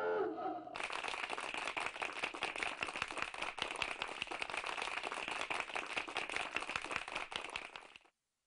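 A group of people applauding: dense, steady clapping that stops abruptly near the end. A voice is heard briefly just before the clapping starts.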